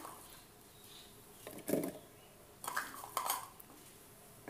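Kitchen dishes and utensils clattering: a few short knocks and scrapes, starting about a second and a half in, as onions, garlic and chili are put together and mixed.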